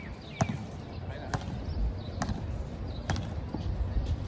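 A basketball being dribbled on a hard court, five sharp bounces a little under a second apart.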